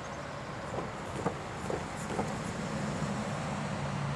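Diesel engines of a CSX freight train led by EMD SD70AC locomotive #4710, a low steady drone that grows a little louder near the end, with a few faint clicks.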